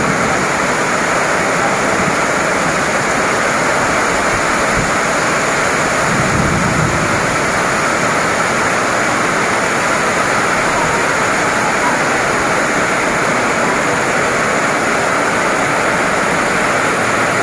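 Heavy rain pouring down in a loud, steady rush. An electric commuter train pulls in under it, heard only as a brief low rumble about six seconds in, mostly drowned by the rain.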